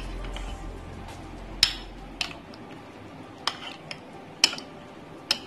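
A spoon stirring thick yogurt with soaked pakoris in a ceramic bowl, knocking against the bowl's side with five sharp clinks, roughly one a second.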